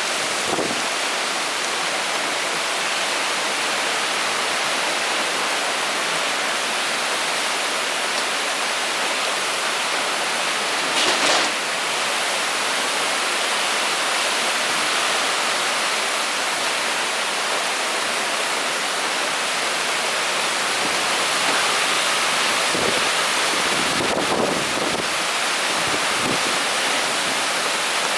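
Typhoon rain and wind: a steady, dense rush of heavy rain, with one brief louder burst about eleven seconds in and a few dull low thumps near the end.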